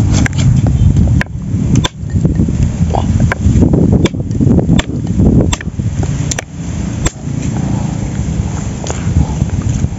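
A knife blade chopping at a dry wooden stick: about ten sharp, irregular knocks, with a steady low rumble of wind on the microphone underneath.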